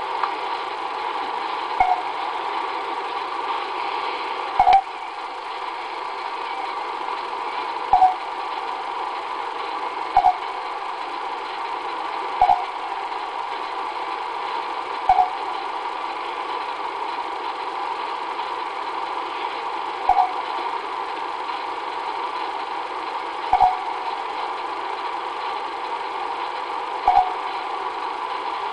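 Common raven giving short, clipped calls, each with a click, about nine in all, spaced two to four seconds apart. They sound over a steady hum and hiss, because an old recording is being played back through a computer and re-recorded.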